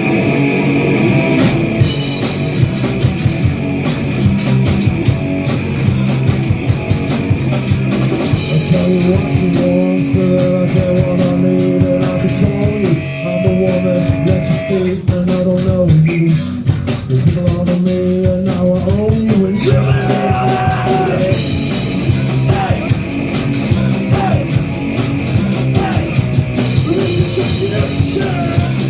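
Live punk rock band playing loud and fast: distorted electric guitars and a driving drum kit, with a singer's voice coming through.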